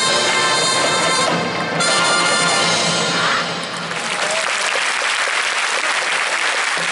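A marching band's brass playing a sustained chord that ends about three and a half seconds in, followed by steady crowd applause.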